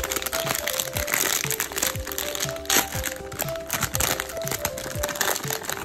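Plastic gummy-bear bag crinkling and crackling as hands squeeze and handle it, with one sharper, louder crackle near the middle. Background music with a steady beat runs underneath.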